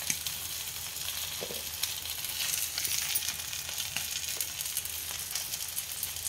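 Masala-coated seer fish steaks sizzling in shallow oil on a dosa tawa: a steady frying hiss with scattered small crackles throughout.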